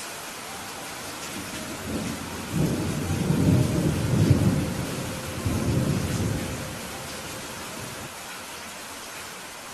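Steady rain falling, with a roll of thunder that rumbles in about two seconds in, swells and dies away again by about six and a half seconds.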